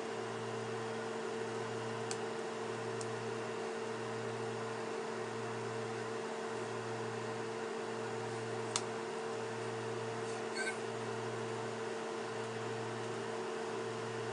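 Steady machine hum with a low note pulsing about once a second, and a few faint clicks.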